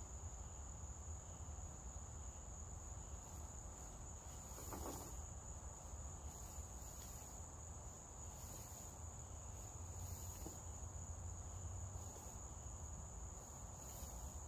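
Steady, high-pitched drone of insects, like crickets, continuing without a break, with a low rumble underneath.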